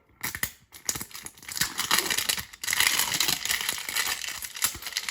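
Plastic wrapping on a Poké Ball collector tin being crinkled and torn off. A few sharp clicks at first, then dense crackling.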